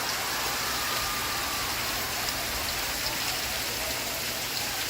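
Steady rain falling on a surface, an even, unbroken hiss.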